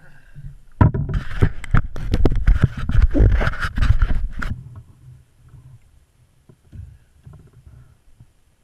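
Largemouth bass splashing and thrashing at the water's surface as it is gripped by the lip and lifted out beside a kayak. The burst of splashing starts about a second in and stops after about four seconds, leaving only faint small knocks and drips.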